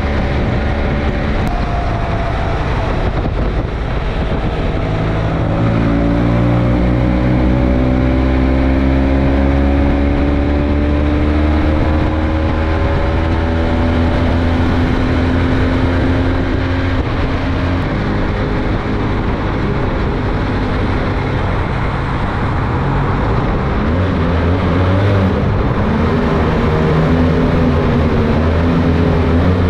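BMW F800GS parallel-twin motorcycle engine, fitted with an aftermarket exhaust, pulling under way. Its note rises in pitch as the bike accelerates over several seconds, then runs steadily, over constant wind rush and road noise.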